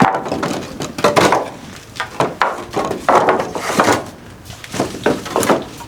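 Irregular wooden knocks and thuds, several in a few seconds, as goats are herded into their wooden stalls.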